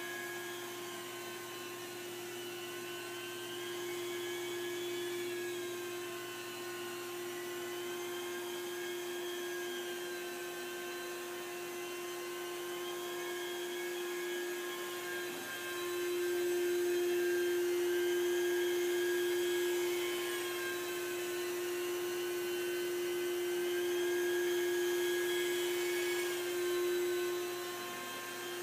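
Rotovac rotary carpet-extraction machine running while being worked over carpet: a steady whine with higher tones that slowly rise and fall every few seconds, getting a little louder about halfway through.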